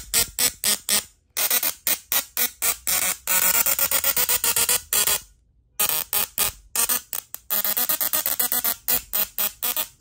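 A small musical Tesla coil plays a tune through its sparks as a harsh electric buzz, chopped into rapid short notes. It breaks off briefly about a second in and again for about half a second near the middle.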